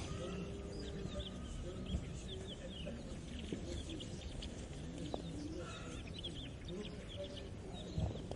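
Farmyard morning ambience: hens clucking over many small birds chirping, with a steady low rumble beneath. A single knock near the end.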